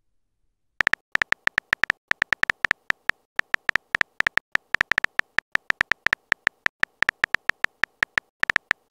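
Texting-story app's simulated keyboard typing sound: a rapid run of short, identical clicks with a high ring to them, about five a second, one per letter as a message is typed out. It starts about a second in and keeps going, with a brief gap near the end.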